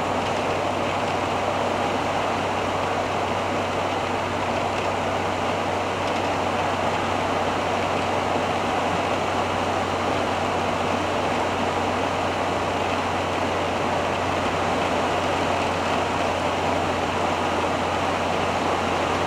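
Steady driving noise of a 1985 Hobby 600 motorhome on a Fiat Ducato base cruising at about 85 km/h: a low, constant engine drone under an even rush of road and wind noise.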